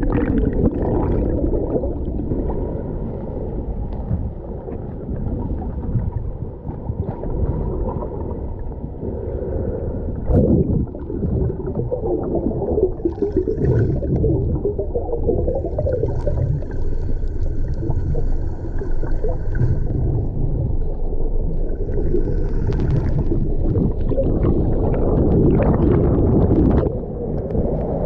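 Muffled churning and gurgling of water heard with the microphone submerged in a deep waterfall pool, a dull, steady rush with the highs cut off.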